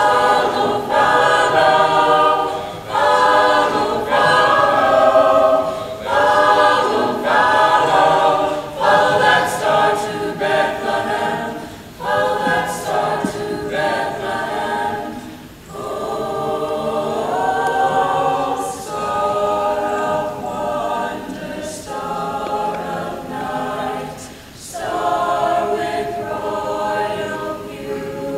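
Mixed choir of teenage boys and girls singing a Christmas song, phrase after phrase, with short breaks for breath between the lines.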